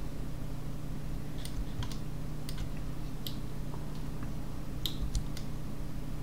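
Computer keyboard and mouse clicking: about a dozen irregular taps and clicks, starting about a second and a half in and stopping near the end, over a steady low hum.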